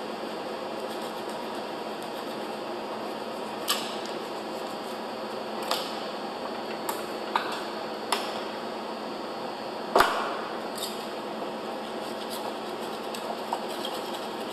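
A hand scraper chipping and scraping hardened concrete off the edges of a metal concrete pump piston held in a vise. The sound is irregular sharp clicks and scrapes of the tool on metal and concrete, loudest about ten seconds in, over a steady shop hum.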